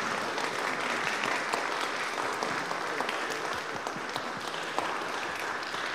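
A small group of people applauding: a round of hand clapping that eases off slightly near the end.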